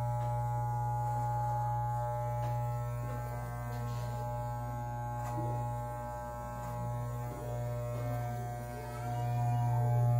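Electric beard trimmer running with a steady buzzing hum, its loudness dipping and swelling a little as it is worked through the beard.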